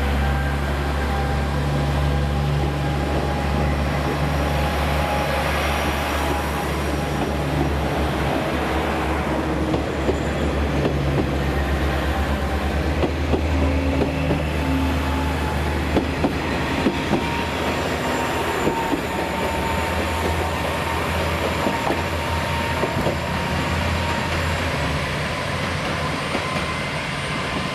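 KiHa 47 diesel railcar pulling out past the platform: its diesel engine drones low and steady while the wheels click over the rail joints, the clicks thickest in the middle stretch. Near the end the sound eases slightly as the train draws away.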